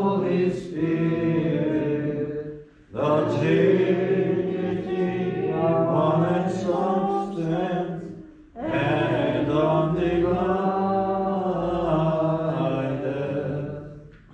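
Byzantine-rite liturgical chant sung by unaccompanied voices, in three phrases with short pauses about three and eight and a half seconds in.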